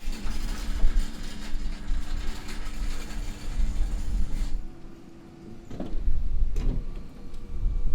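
Brewery machinery running with a steady hum over a low rumble. About four and a half seconds in the hum changes pitch and drops in level, then two sharp knocks come and the rumble returns.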